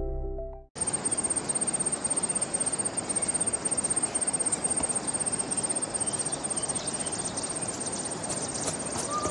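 Background music fades out, then high-pitched insect chirping, cricket-like, repeats in steady rapid pulses of about five or six a second over a hiss of outdoor background noise.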